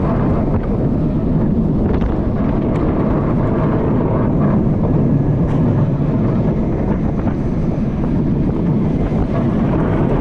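Wind rushing over the microphone mixed with the steady running noise of an Intamin jet-ski roller coaster train on its steel track, with a few faint clicks and rattles.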